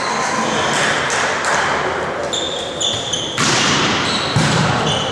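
Volleyball play on an indoor court: athletic shoes squeak briefly on the floor several times. A sharp hit of the ball comes a little past halfway and a second thump about a second later, over steady hall noise.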